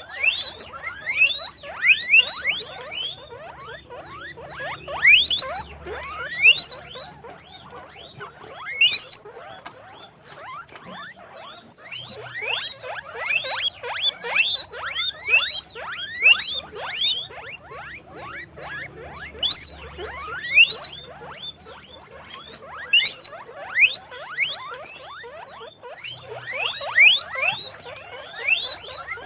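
Several guinea pigs squeaking: a steady stream of short, high-pitched squeals, many a second and overlapping, with louder bursts every second or two. A faint steady high tone runs underneath.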